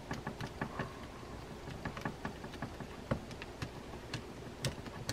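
Small screwdriver clicking and scraping against the plastic line-guide pawl cap of a Shimano Tekota baitcasting reel as the cap is worked loose: a run of small irregular ticks, several a second.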